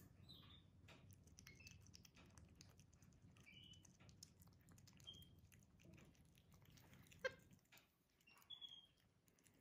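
Faint, short high-pitched chirps from a capuchin monkey, spaced a second or more apart, with a few small clicks, the sharpest about seven seconds in.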